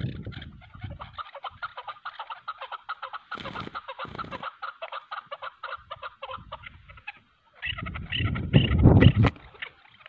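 Chukar partridges (chakor) calling: a rapid, continuous series of short call notes, cut off briefly about seven seconds in. Bursts of low rumbling noise come in between, the loudest near the end.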